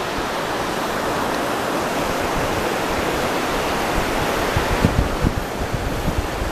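Shallow surf washing over wet sand at the water's edge, a steady rushing hiss. From about four seconds in, wind buffets the microphone in uneven low thumps.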